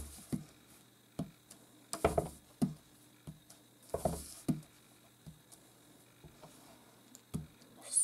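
Clear acrylic stamp block knocked down onto paper on a tabletop and pressed onto a dye ink pad: a string of short, irregular taps and knocks, several in quick succession about two and four seconds in.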